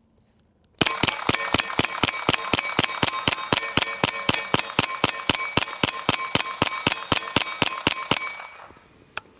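Suppressed CZ Scorpion EVO 9mm carbine fired in a rapid mag dump: some thirty shots at about four or five a second, each with a metallic ring, stopping about eight seconds in. A single click follows about a second later.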